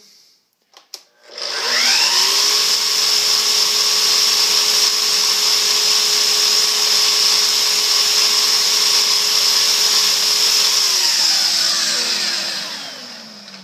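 Festool Kapex miter saw motor switching on and spinning up about a second in, then running steadily with a high whine, alongside the Festool CT22 dust extractor that powers it. Near the end both wind down with falling pitch.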